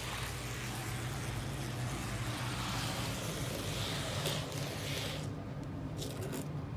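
Metal wheels of an unpowered HO-scale model locomotive frame rolling along the track as it is pushed by hand, a steady rolling rattle under a low hum, with a few sharp clicks about four seconds in and around six seconds in.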